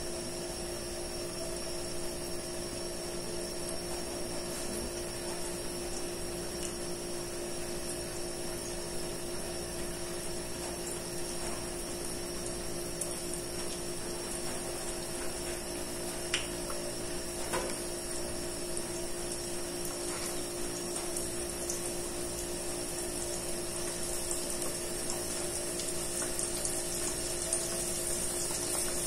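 Brine-soaked tempe slices deep-frying in hot oil in a stainless steel pot: a steady sizzle that grows louder toward the end. A steady hum runs underneath, with a couple of light clicks a little past the middle.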